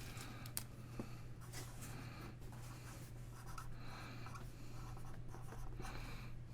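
Pen scratching on paper in a series of short strokes, faint, over a low steady hum.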